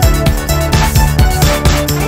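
Background music with a steady beat, about two beats a second, over sustained melodic notes.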